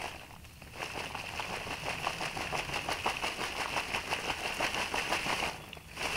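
Leafy branches of a weaver ant nest shaken and squeezed by hand, the leaves rustling and crackling in rapid little clicks as the ants are knocked out. The sound dips briefly about half a second in and again near the end.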